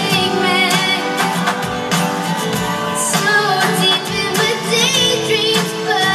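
Live concert music, a young solo singer performing a song over instrumental accompaniment, heard from the audience in a large hall.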